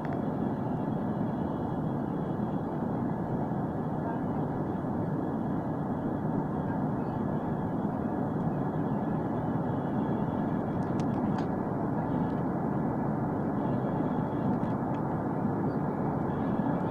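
Steady cabin noise inside an Embraer 145 regional jet on takeoff: the rush of air and the two rear-mounted turbofan engines running at high power, with a faint high whine over the low roar, growing slightly louder towards the end. A few faint ticks about two-thirds of the way through.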